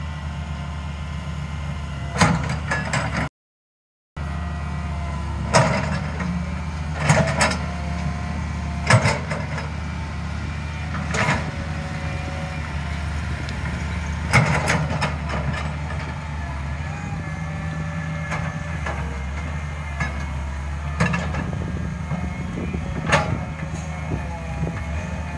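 Daewoo 130W-V wheeled excavator's diesel engine running steadily under load while it digs soil, with sharp clanks and knocks at irregular intervals from the bucket and boom linkage. The sound cuts out completely for under a second about three seconds in.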